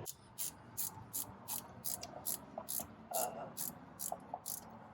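Ratchet wrench swung back and forth, its pawl rattling in short clicking bursts about two to three times a second, as the brake caliper bolts are worked loose.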